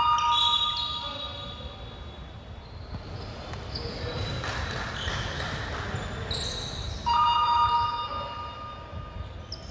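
Sneaker squeaks on a hardwood gym floor during a basketball game: one sharp squeak right at the start and another about seven seconds in, each under a second long.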